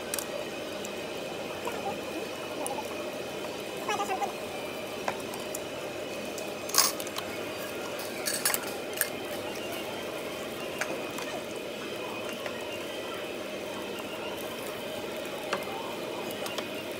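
Steady background hum of a restaurant dining room with scattered clinks of dishes and utensils on the table, the loudest a sharp clink about seven seconds in.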